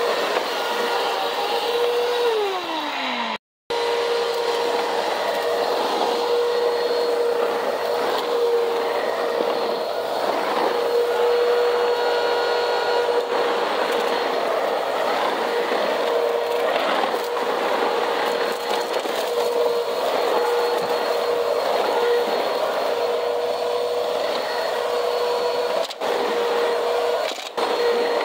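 Vacuum cleaner running on a cement floor: a steady motor whine over a gritty crackle of debris being sucked up. About two seconds in the motor pitch falls away as it spins down, then after a brief cut it is running steadily again.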